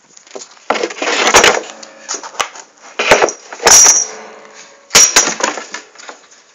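Fold-out bed being wrestled open, not going easily: a long scraping rumble, then several sharp bangs and clatters from its frame, one with a brief ring.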